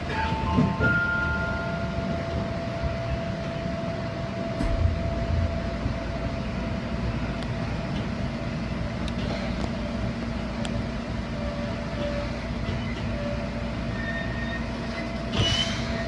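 Seibu Kokubunji Line train running, heard from the cab: steady running noise with a thin, steady whine held throughout. There are a few short tones in the first couple of seconds and a brief swish near the end.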